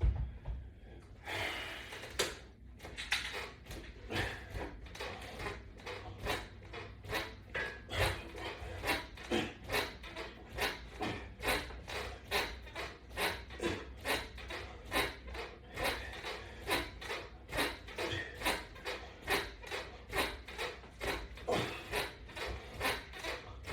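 A steady rhythm of short sounds, about two a second, from a person doing fast crunch repetitions against a resistance band on a wall-mounted latch bar.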